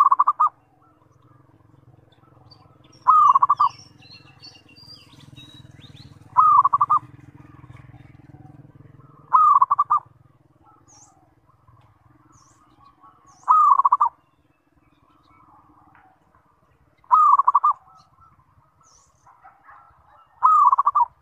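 Zebra dove (perkutut) cooing: a short rolling coo, about half a second long, repeated seven times at intervals of about three to four seconds. Faint high chirps come in between the coos.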